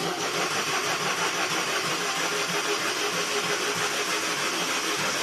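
Starter motor cranking a Volkswagen 1.2 TSI petrol engine steadily with a rhythmic pulse, the engine not firing because its injectors are unplugged: the engine is being spun over to prime the oil system after a new timing chain and oil pump were fitted.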